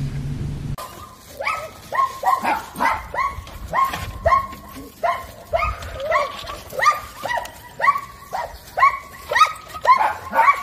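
A dog barking in a rapid, even string of short high-pitched barks, about three a second, which begins about a second in after a low hum cuts off.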